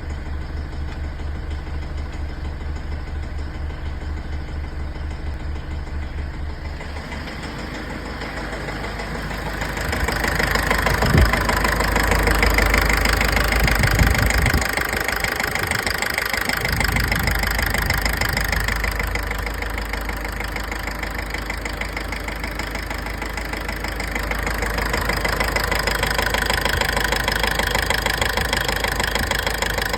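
Mitsubishi L200's 4D56 four-cylinder diesel engine running with a rhythmic knock, louder from about ten seconds in, with a couple of sharp thumps. The owner puts the knock down to faulty injector nozzles, from bad fuel and an unchanged fuel filter.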